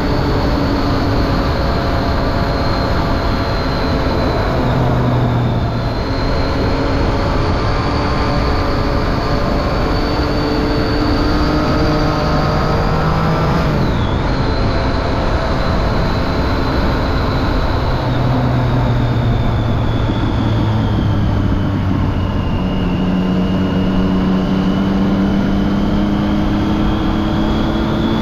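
Triumph Street Triple 675's three-cylinder engine running through a Remus Hypercone exhaust with the dB killer fitted. Its note rises and falls with the throttle and shifts pitch several times.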